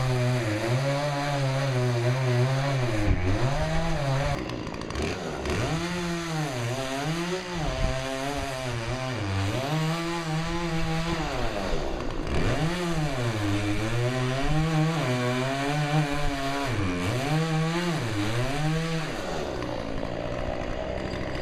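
Chainsaw running at high revs while cutting into a tree, its engine note dipping and recovering every second or two as the chain loads up in the wood. The saw drops back and stops about three seconds before the end.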